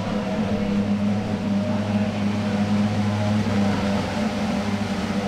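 A racing car engine droning at a steady, unchanging pitch.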